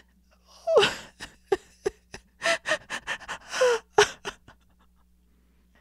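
A woman sobbing: a run of short, catching, gasping breaths broken by brief whimpering cries.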